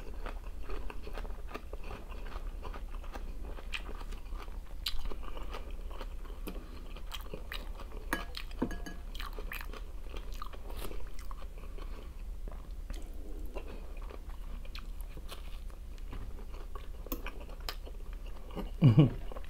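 A person chewing and eating: many short wet mouth clicks and smacks, over a steady low hum.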